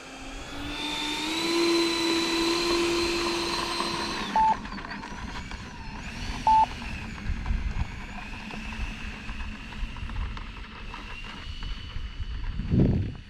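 Engines of a radio-controlled Airbus A320 model jet spooling up into a steady high whine, then throttling back about four seconds in and running on lower. Two short high beeps come in the middle, and a rush of wind hits the microphone near the end.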